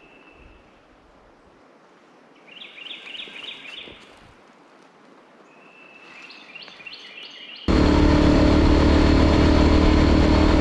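Birds calling in quick series of high notes over quiet outdoor surroundings. About three-quarters of the way through, an abrupt cut to a motorcycle engine running steadily and much louder.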